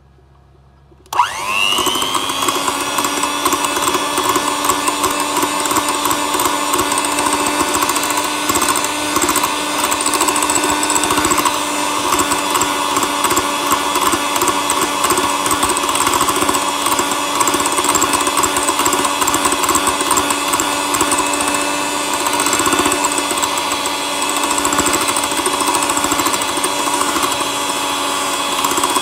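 Electric mixer switched on about a second in, its motor whine rising quickly as it spins up, then running steadily as the beater whips thick cream soap.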